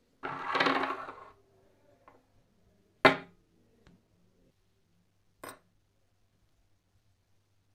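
Metal tool being handled: a scraping slide about a second long, then three sharp clicks spaced a couple of seconds apart, the first the loudest, over a faint steady hum.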